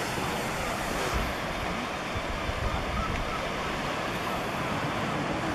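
Sea surf breaking and washing over rocks below a cliff, a steady hiss, with wind gusting on the microphone.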